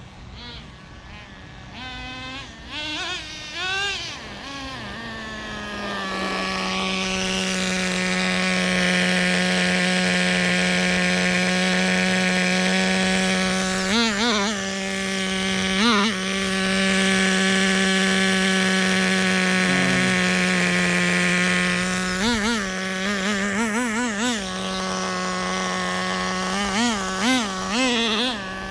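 Small nitro glow-plug engine of an RC truck running at a steady pitch, blipped up a few times early on and then given a quick run of short throttle blips near the end. It is being run in and tuned during its break-in.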